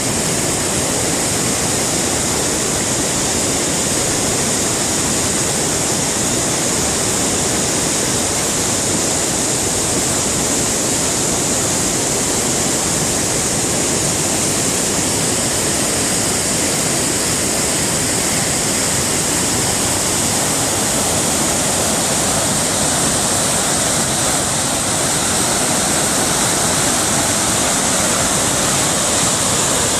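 The River Clyde in spate after heavy rain: a steady, loud rush of fast-flowing floodwater.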